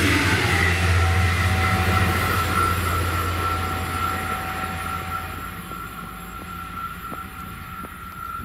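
Bombardier Talent 2 electric multiple unit passing close and fading away: a rumble of wheels on rail that dies down after a few seconds, under a steady high whine, with a few faint clicks near the end.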